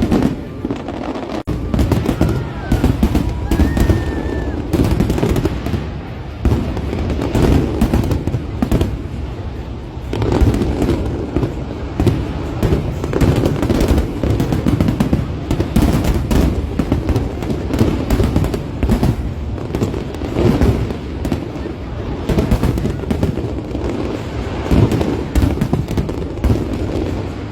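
Dense barrage of aerial fireworks: booms and crackling bursts following one another almost without a break, with a brief whistling tone a few seconds in.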